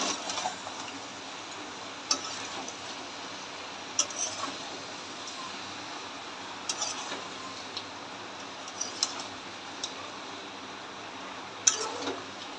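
A metal spatula stirring chunks of goat head meat in a steel kadai. It scrapes along the pan and strikes its side in sharp clinks every couple of seconds, over a steady low hiss.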